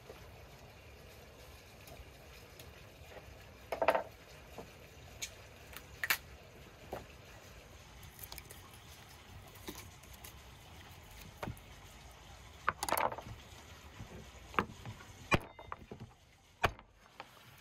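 Raw lamb being cut and handled on a wooden cutting board with a boning knife: soft, wet slicing and handling sounds broken by short knocks and taps of the blade and meat on the board, the louder ones about four seconds in, about six seconds in, around the middle, and a few sharp ones near the end.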